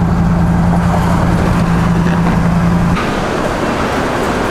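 Car engine and road noise heard from inside the cabin while driving, a steady low drone. It cuts off about three seconds in, giving way to a duller, even background noise.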